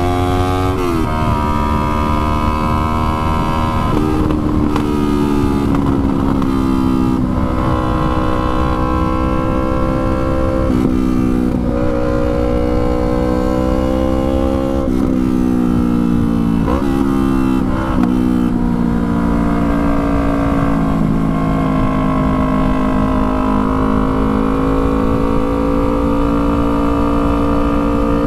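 A 2019 Yamaha R3's 321 cc parallel-twin engine riding under way. Its pitch climbs, then drops sharply several times in the first eighteen seconds as gears change, and it runs at a nearly steady pitch for the rest. A low rumble of wind noise runs under it.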